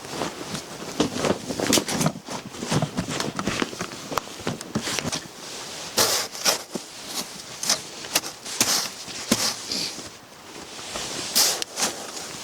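Snow crunching and scraping in quick, irregular short crunches, as people walk in it and shovel and pack it into boxes for a wall.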